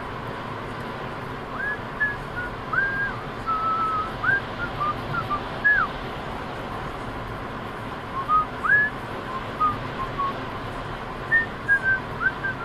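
Steady road noise inside a moving car, with scattered groups of short, high whistle-like notes that rise and fall, each under half a second long.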